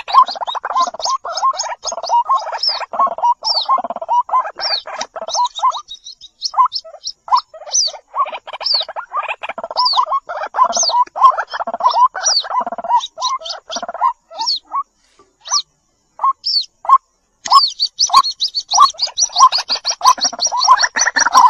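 White-breasted waterhen chicks calling: rapid, overlapping short calls, high downward chirps over lower repeated notes, broken by a short pause about three-quarters of the way through.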